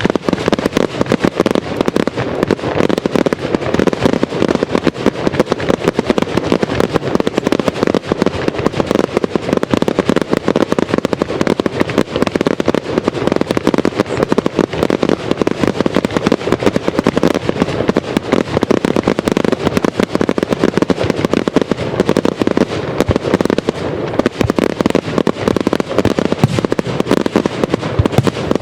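Aerial fireworks display going off in a dense, continuous barrage: rapid bangs and crackling overlapping with no pause.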